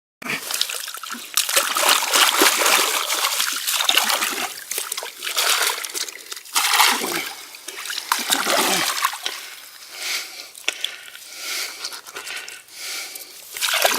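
A gutted northern pike being rinsed by hand in lake water: irregular splashing and trickling.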